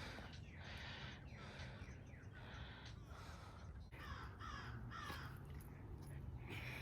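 Crows cawing, a faint run of repeated calls, some falling in pitch.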